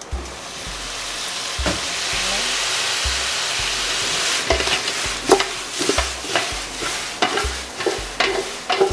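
Boiled lamb pieces going into hot oil and fried onions in a steel stockpot, sizzling loudly the moment they go in. From about halfway, sharp knocks and clatters join the sizzle as the pot is handled on the gas burner.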